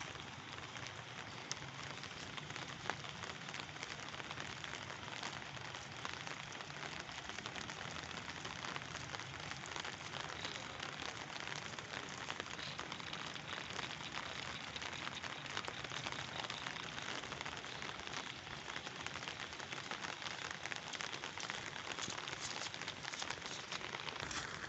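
A steady, fine crackling hiss like rain falling on surfaces, even throughout with no distinct events.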